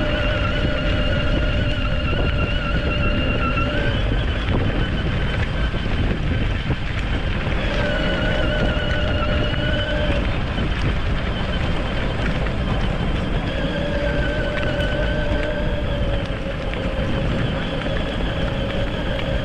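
Electric drive motors of a 24V ride-on toy Mercedes G63 whining at a steady pitch as it drives, running in 4-wheel drive. The whine drops out twice and comes back, over a steady rumble of wind on the microphone.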